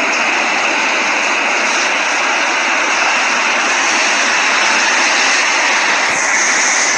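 Steady, loud rushing noise without any pitch.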